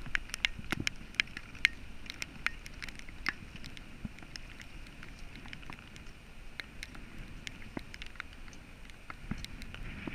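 Rain and wind on the microphone: a steady hiss with many irregular sharp ticks, over a low rumble of wind buffeting the microphone.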